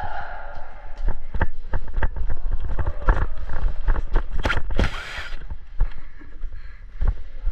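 Quick, heavy footsteps thudding irregularly on wooden stairs and floor. About five seconds in comes a brief scraping rush.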